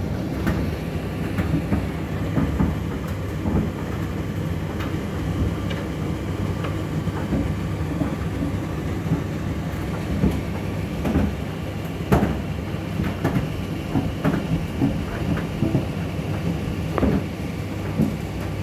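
Indesit IDC8T3B condenser tumble dryer running: a steady low hum of the motor and drum, with irregular knocks and clicks from the load tumbling inside the drum.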